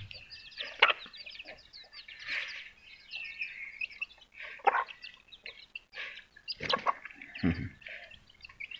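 Chicks peeping in quick short chirps, with a few louder, lower calls mixed in, the loudest about seven seconds in.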